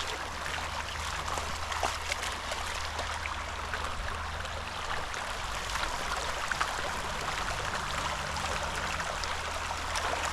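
Small creek running and trickling steadily.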